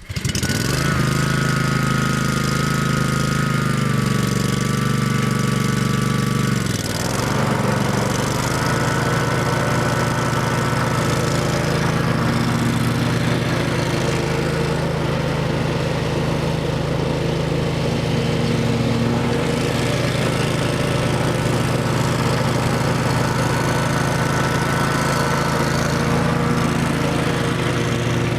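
2005 Exmark 36-inch Viking hydro mower's engine catching and starting, then running steadily with a thin whine over it. About seven seconds in the engine speed dips briefly, then it settles and runs evenly; it idles smoothly.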